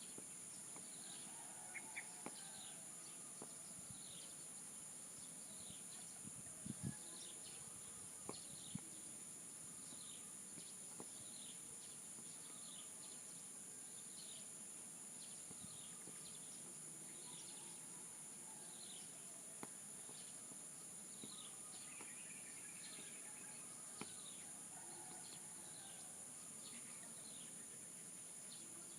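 Faint outdoor soundscape: a steady high-pitched insect drone under a small bird repeating a short falling chirp about once a second, with a few soft clicks.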